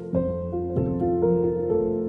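Soft background music: held keyboard notes, with a new note or chord coming in about every half second.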